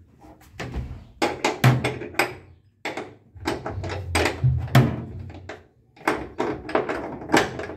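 Ratchet wrench and socket clicking and knocking in quick irregular strokes as it is worked against a stubborn seat-belt anchor bolt in a Volkswagen Kombi's steel floor pan.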